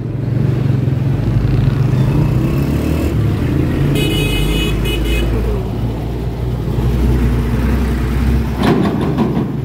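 Close-range road traffic: a steady low engine rumble from heavy vehicles passing just alongside. About four seconds in, a high steady tone sounds for about a second, and a short burst of knocking or rustling comes near the end.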